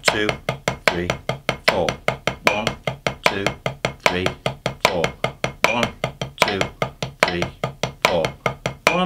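Drumsticks striking an octagonal drum practice pad in a single stroke roll, alternating right and left hands, as even 16th notes at 75 BPM: about five crisp taps a second, with a louder tap on each beat.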